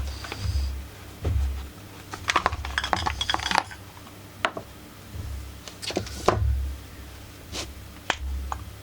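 Clicks, knocks and light rattling of a Husqvarna 44 chainsaw's plastic and metal parts being handled and opened up by hand, with a quick run of rattling clicks about two to three and a half seconds in.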